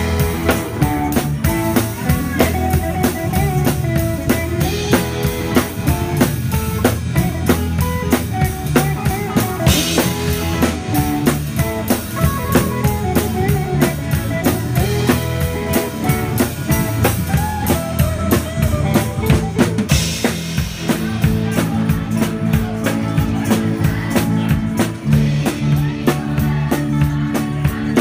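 A live band playing, with the drum kit loudest as heard from right behind the drummer: a steady beat of kick drum, snare and cymbals over other pitched parts, with louder cymbal crashes about ten and twenty seconds in.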